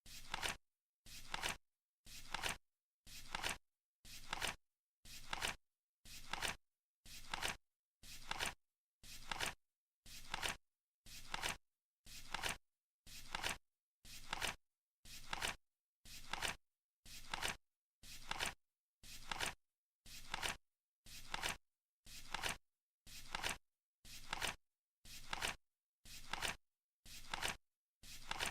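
Flip clock's number flaps flipping over once a second, each a short crisp flip that builds and cuts off sharply, in an even, steady rhythm.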